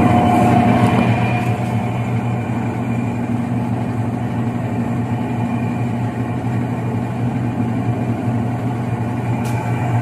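Electrolux LTE09 top-load washing machine running steadily in its spin cycle: a low motor hum with a whooshing drum above it. The machine has been repaired and is working again.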